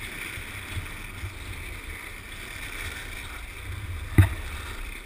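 Freebord wheels rolling on asphalt, a steady low rumble, with wind noise on the camera microphone. A single sharp knock about four seconds in.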